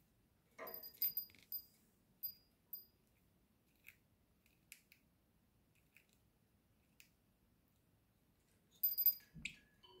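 Small metal bell on a budgie's cage toy clinking in short, high tinkles: a quick cluster about a second in, a few lone clicks in the middle, and another cluster with a soft thump near the end.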